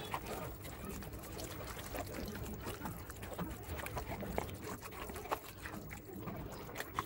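A hand squishing and turning raw chicken pieces in a wet spice-paste marinade in a bowl: an irregular run of small wet squelches and clicks.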